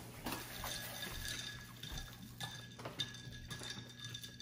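A few faint clinks and light taps of tableware and a plastic ketchup bottle being handled on a table, scattered and soft.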